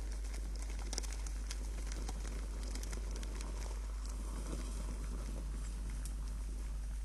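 Outdoor webcam microphone with a steady low electrical hum, under scattered small ticks and rustles.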